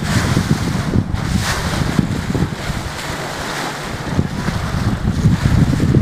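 Wind buffeting the microphone over the rush of sea water alongside a moving boat, a steady low rumble that swells and eases in gusts.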